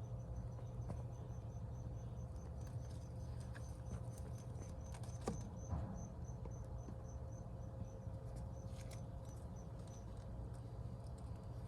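A cricket chirping steadily, a short high chirp about four times a second, stopping near the end, over a low steady hum. A couple of light knocks come about halfway through.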